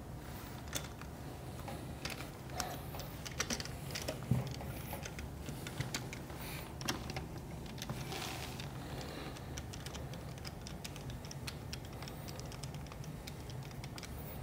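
Screwdriver backing a small screw out of the front of a DF83 coffee grinder's chute: scattered light clicks and ticks of tool and screw.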